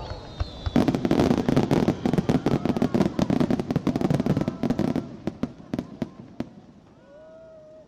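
Fireworks crackling: a dense run of rapid sharp pops starts about a second in, thins out after about four seconds and dies away. A short voice is heard near the end.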